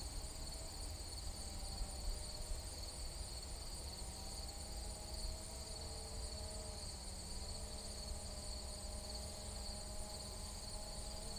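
Steady high-pitched chorus of crickets or other insects, with the faint hum of a Holy Stone HS700D quadcopter's propellers overhead, its pitch slowly rising and falling as it flies. A low rumble of wind on the microphone runs under it.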